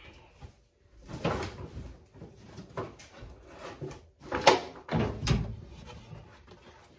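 Interior kick panel of a 1969 Dodge Charger being handled and fitted into place: several knocks and scrapes, the loudest about four and a half seconds in.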